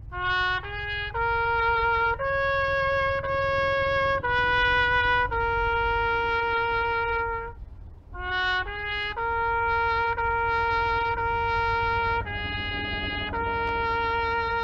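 Solo trumpet playing a slow ceremonial melody in two phrases, each opening with two short climbing notes and then moving through long held notes, with a brief break between them.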